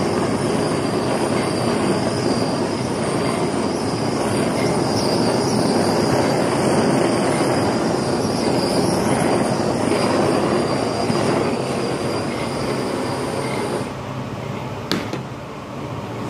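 Handheld gas torch on a butane-mix canister burning with a steady hiss and a faint high whistle as it is played over crème brûlée custard. The flame stops about 14 seconds in, followed a second later by a single sharp click, leaving a quieter steady hum.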